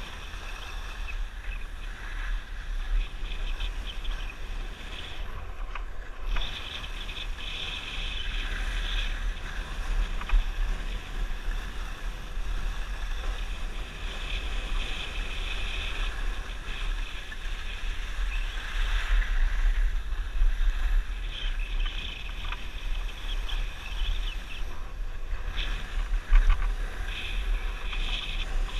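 Wind buffeting the microphone of a camera worn by a downhill skier, a steady low rumble, with the hiss of skis sliding and carving on packed snow swelling and fading through the turns.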